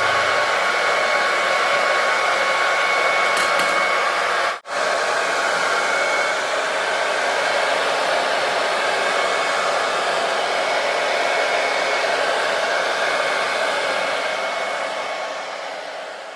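Hand-held hair dryer running steadily, a blowing rush with a faint whine. It cuts out for an instant about four and a half seconds in and fades away near the end.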